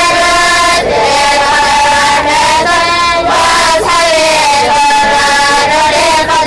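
Many male and female voices chanting a versified Islamic text (matn) together in a slow melodic recitation, with long drawn-out notes and brief breaths between phrases.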